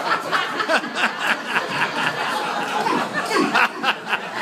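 An audience chuckling and laughing, mixed with scattered murmured talk.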